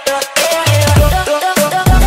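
Electronic dance music soundtrack: synth notes over a beat, the deep bass dropping out at the start and coming back in just before the end.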